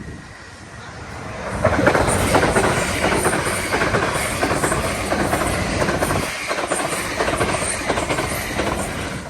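Fast passenger train passing over a level crossing. Its noise swells about a second and a half in and stays loud until near the end, full of rapid wheel clicks over the rails.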